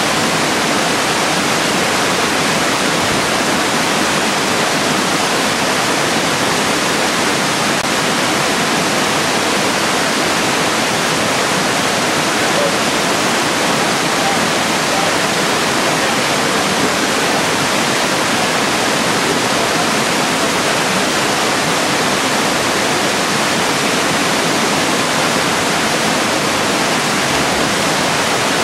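Small waterfalls spilling over rock ledges into a gorge pool: a steady, even rush of water.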